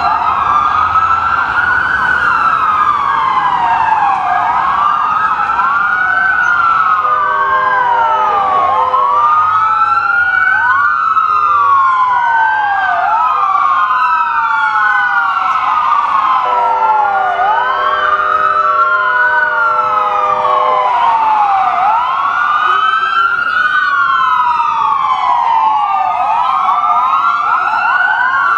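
Several ambulance sirens on wail at once, each sweeping slowly up and down in pitch and overlapping out of step. A steady horn chord sounds twice, briefly and then for several seconds.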